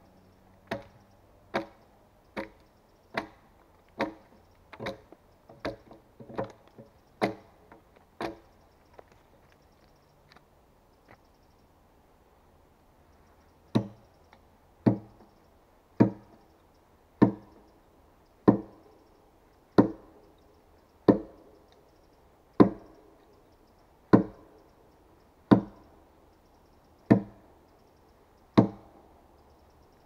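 Axe blows biting into a peeled log, a sharp knock with each stroke. Lighter strokes come about once a second, stop for several seconds, then return heavier and slower, about every second and a half.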